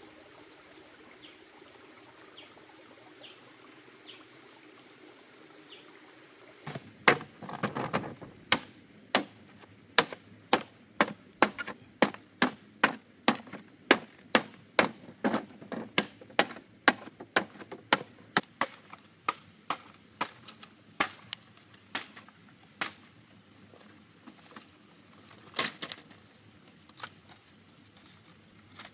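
Machete chopping green bamboo: a steady run of sharp strikes, about three every two seconds, starting some seven seconds in and thinning to a few scattered chops near the end. Before the chopping there is only a faint, steady high-pitched drone with a few short chirps.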